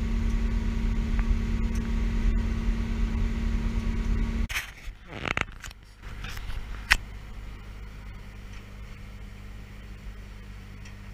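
Steady mechanical drone with a constant hum from a rail-loading train's machinery. It cuts off suddenly about four and a half seconds in, giving way to a few clicks, a sharp knock about seven seconds in, and then a much quieter steady noise.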